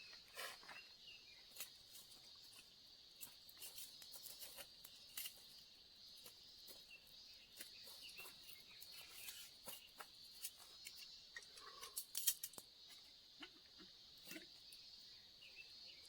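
Faint, steady high-pitched chirring of insects, with scattered irregular clicks and light taps, a small cluster of louder ones about three-quarters of the way through.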